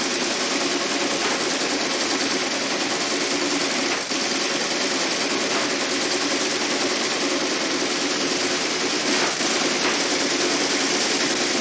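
Continuous dense, rapid mechanical clatter, like a machine rattling at speed, steady in level with a brief dip about four seconds in.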